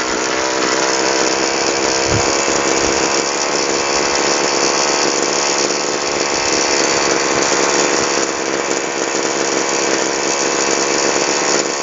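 Tasco TU26 single-cylinder two-stroke engine running steadily at an even speed. Its carburettor adjusting screw has just been backed out counter-clockwise, and that cured its hard starting.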